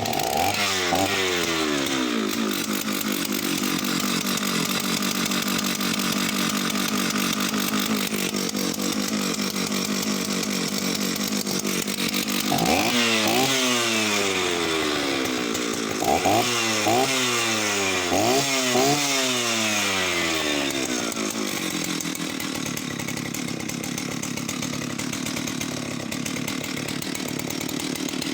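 Oleo-Mac 272 two-stroke chainsaw running just after a cold start, choke off. It runs steadily, is revved three times in quick rise-and-fall blips about halfway through, then settles to a steady idle.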